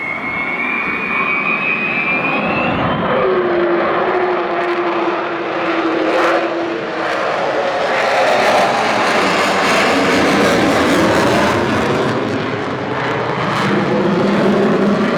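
Avro Vulcan bomber's four Olympus turbojets at high power on a fly-by: a loud, steady jet roar carrying the Vulcan howl. A high whistling tone dips and rises over the first few seconds, then a lower tone slowly falls in pitch as the aircraft passes, and the roar swells.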